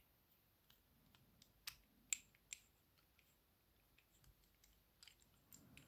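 Faint, scattered metallic clicks of a disc detainer pick being worked in the keyway of an ABUS Plus 89/50 disc detainer padlock, with three sharper clicks close together about two seconds in.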